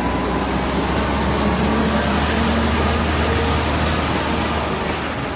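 Industrial machinery running: a loud, steady rushing noise with a low hum underneath, which fades near the end.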